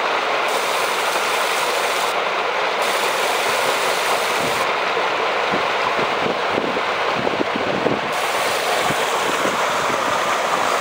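Floodwater surging up out of a street manhole in a steady rush, the sewer overwhelmed and forcing its cover up and aside. A run of scattered low knocks comes in the middle.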